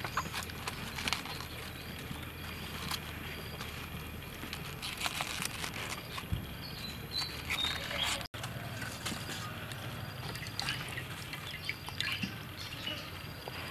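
A kitchen knife cutting through a raw cabbage head on a wooden chopping board, with scattered crisp cuts and crackles of the leaves. About eight seconds in, water drips and trickles as soaked noodles are lifted from a metal bowl, with faint bird chirps behind.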